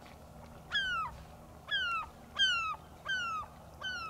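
A gull calling five times in quick succession. Each call is short and falls in pitch.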